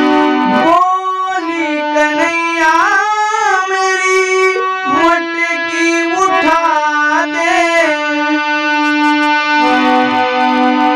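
Harmonium holding a chord, with a voice singing a wordless, ornamented phrase over it that slides and bends in pitch from about a second in until about eight seconds. This is the distinctive melodic turn of the bhajan's line. Near the end the harmonium chord is heard alone again.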